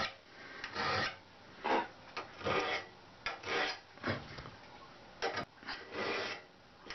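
Hand file rasping across the steel cutter teeth of a two-man crosscut saw clamped in a vise, about ten strokes at an uneven pace, sharpening the teeth.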